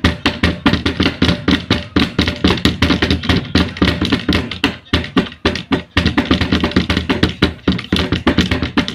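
Children drumming on a hard object: fast, uneven knocking, several hits a second, with a brief break about six seconds in.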